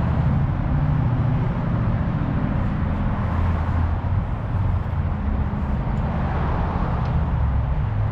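Steady low rumble of a motor vehicle engine, with background outdoor noise.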